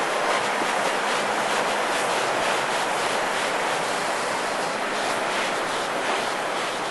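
Steady rushing of a fast-flowing river running white over rocks.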